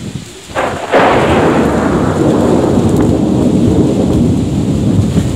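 Thunder: a sudden loud crack about a second in, followed by a long rolling rumble, with rain.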